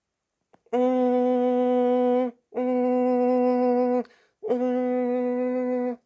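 A buzzing alarm tone at one steady low pitch, sounding in three long blasts of about a second and a half each with short gaps between them.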